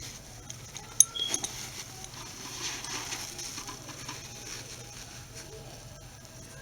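Handling of a belt and its metal buckle: a sharp click about a second in, then faint rustling and a few small clicks.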